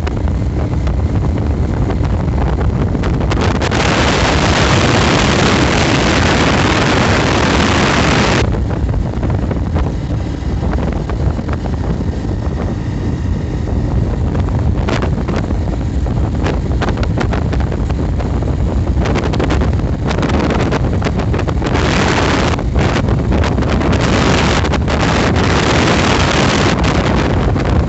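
Wind buffeting the microphone: a loud, steady low rumble with irregular gusts of hiss, the strongest gust about four to eight seconds in.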